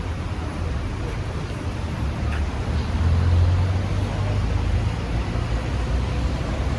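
Road traffic noise: a steady low rumble of passing vehicles, swelling as one passes close about three seconds in.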